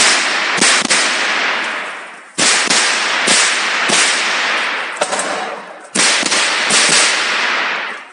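.22 rimfire rifle firing quickly, mostly in pairs, with short breaks as the shooter moves between positions; each shot rings out with a long echo in a large indoor range hall. The shooting stops near the end.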